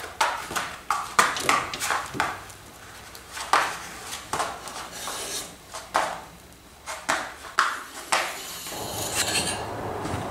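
Metal straight edge clinking and tapping against the sheet-metal car hood as it is set down and shifted, a run of sharp, irregular clicks. Near the end a steady rushing noise starts up.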